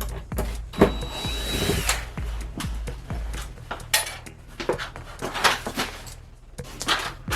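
Knocks and clatter of tools being handled during demolition work, with a short whining power-tool burst about a second in, over background music.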